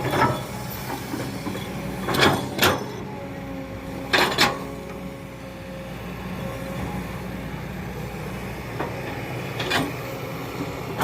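Excavator's diesel engine running steadily, with a brief whine in the middle and several sharp metal clanks and knocks, some in quick pairs, as the machine works.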